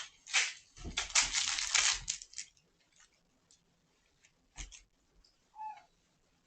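A cat hissing in a short scuffle, with low thumps, over the first two seconds or so, then scattered light clicks and a brief pitched mew about five and a half seconds in.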